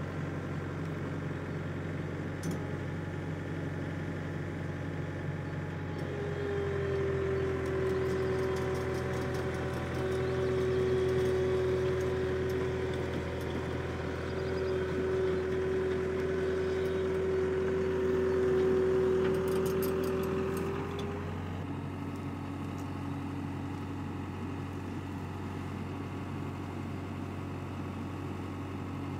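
Takeuchi TCR50 tracked dumper's engine running steadily while it tows a trailer. About six seconds in, the sound gets louder and a steady high whine joins the engine note. The whine drops away again around twenty-one seconds.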